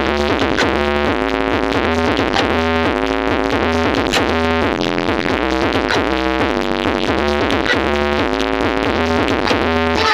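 Loud electronic dance remix with a repeating synth riff over heavy, sustained bass, played through a large street sound system (JBM Audio rig).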